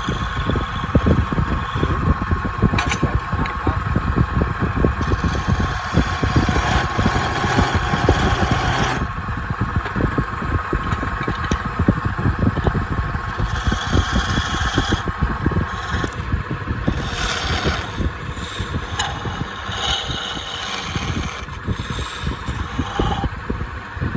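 Woodturning lathe running, with a tool scraping and cutting the spinning palm wood: a steady machine hum under rough, rapid scraping that stops abruptly at the end.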